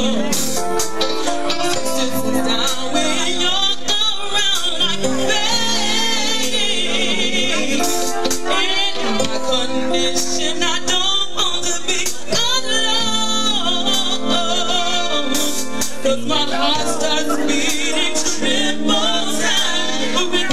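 A woman singing R&B into a handheld microphone, with sliding vocal runs, over keyboard and MIDI-programmed backing played through a PA.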